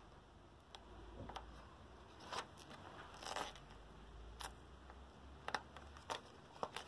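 A series of faint, short scrapes and rustles as adhesive edge tape is handled and pressed onto a pickleball paddle's edge guard.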